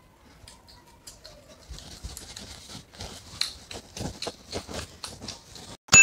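Close, crunchy chewing and mouth noises: a run of irregular soft clicks and crackles as a flaky fried pastry is eaten. Just before the end comes a sharp hit, where a bell-like ding begins.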